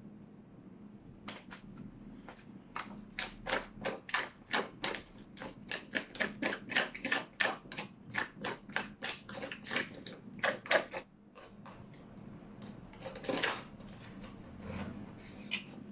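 A fork scraping the last of the baked sushi out of an aluminium foil tray: quick scrapes, about three or four a second, then a pause and a few scattered scrapes near the end.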